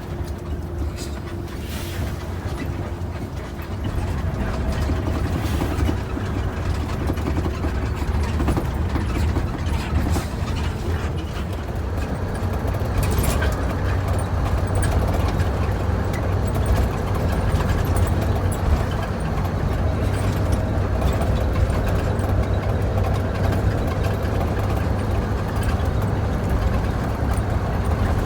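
Bus engine running with road noise heard from inside the cabin, with scattered clicks and rattles from the interior. The sound steps up in loudness about four seconds in and again around thirteen seconds in.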